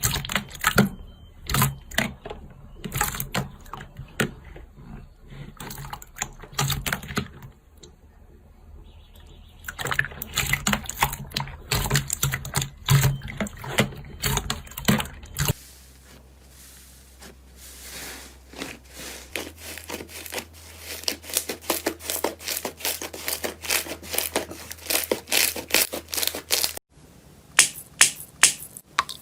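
Slime being squeezed, stretched and poked, making dense sticky popping and crackling clicks, in several clips one after another.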